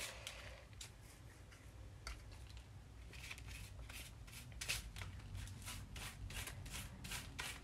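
A brush spreading glue over a small cardstock card, in soft scratchy strokes that settle into about three a second in the second half.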